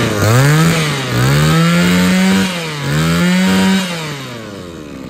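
Mitsubishi TB23 two-stroke brush cutter engine running and revved up three times, each rev held for about a second, then dropping back toward idle near the end.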